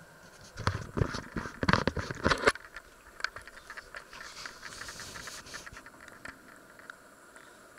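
Handling noise: a quick run of loud knocks and clatters in the first two and a half seconds, then scattered light clicks and a brief soft hiss.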